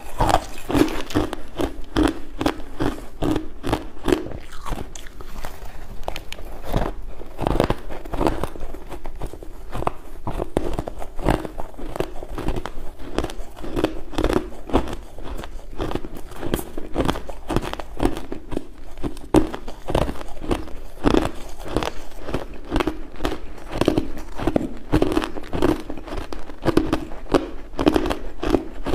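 Chewing a mouthful of hard crushed ice into the microphone: a rapid, continuous run of crunches.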